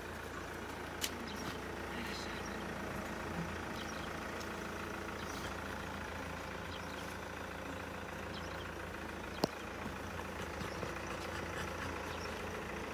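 A steady low hum under a faint even background noise, with a short click about a second in and a sharper click about nine and a half seconds in.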